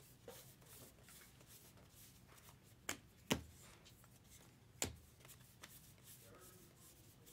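Faint rustling and sliding of 2023 Topps Allen and Ginter baseball cards being flipped through by hand, with a few sharp clicks of card against card.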